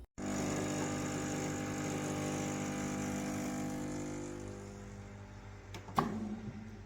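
Espresso machine running: a steady electric pump hum with a hiss, easing off after about four seconds, then a sharp click near the end.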